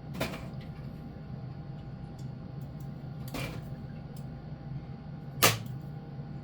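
Three sharp clicks or knocks a few seconds apart, the last the loudest, from handling tools and wire during the install, over a steady low hum.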